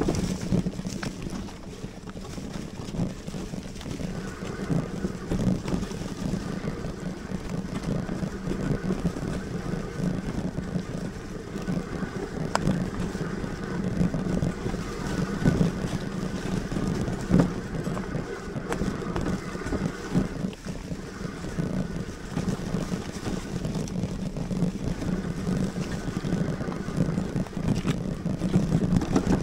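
Lectric Xpeak fat-tyre electric bike being ridden along a dirt trail: a steady rumble of the 26x4 tyres on the ground, with wind on the microphone and sharp knocks and rattles from the bike over bumps. A faint whine from the 750 W hub motor comes in a few seconds in, drops out about two-thirds of the way through and returns.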